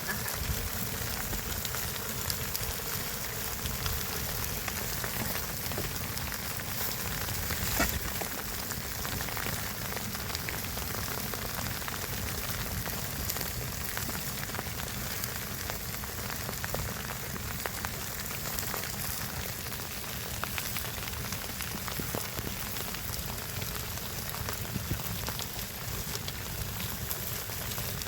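Steady rain falling, an even hiss full of fine ticks, with one sharper tap about eight seconds in.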